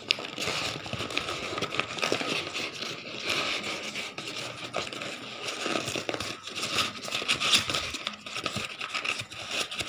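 Brown kraft packing paper crinkling and rustling as it is handled and pulled out of a cardboard box, with irregular scrapes and crackles.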